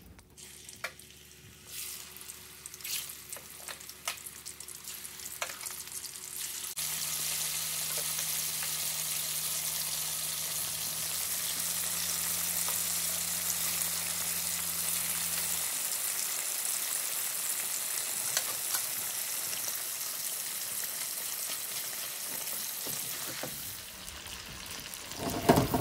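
Marinated chicken pieces on the bone frying in hot oil in a cast-iron wok. A few light clicks come first as the oil heats, then about seven seconds in a sudden loud sizzle starts as the raw batch goes into the oil, and the sizzling carries on steadily.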